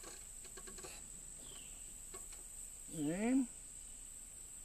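Steady high-pitched trill of a cricket. A few faint clicks come about half a second in, and a short murmur from a man's voice about three seconds in.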